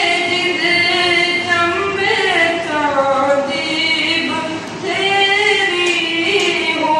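A schoolboy singing a Chambyali folk song solo into a handheld microphone, in long held notes that bend and waver, with short breaths between phrases.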